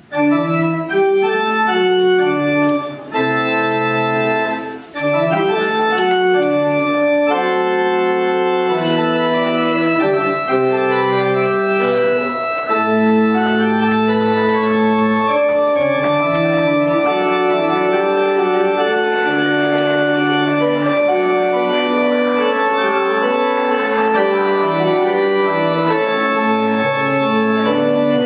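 Church organ playing full held chords with moving lines in the bass and treble, coming in suddenly at the start.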